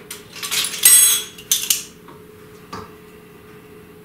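Measuring spoons and a small extract bottle clinking and rattling in hand, a few clinks in the first two seconds, then a single light click near three seconds.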